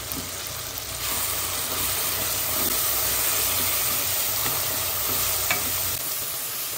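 Onion-tomato masala with freshly added ground spices sizzling in oil in a non-stick kadai, stirred with a wooden spatula that scrapes across the pan. The frying gets louder about a second in and eases off near the end.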